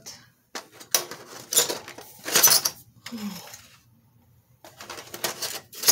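Trays full of colored pencils being lifted and handled, the pencils rattling and clacking against each other and the flimsy trays in several bursts, the loudest about two and a half seconds in and another run near the end.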